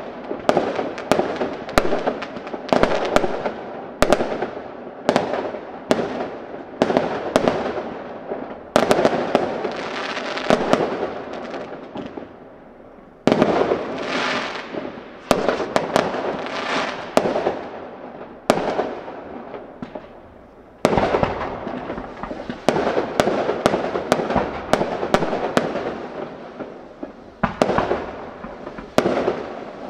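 Fireworks display: aerial shells bursting one after another, sharp bangs about one or two a second, each trailing off in an echoing rumble. There are short lulls about twelve and twenty seconds in, then a quicker run of bangs near the end.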